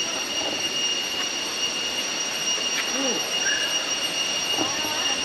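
Waterfall water rushing steadily, with a steady high-pitched whine held under it and faint distant voices now and then.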